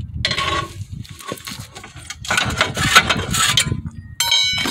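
Crowbar prying the lower control arm down, with metal scraping and knocking as the ball joint stud works out of the steering knuckle. Near the end comes a sharp metallic clink that rings on.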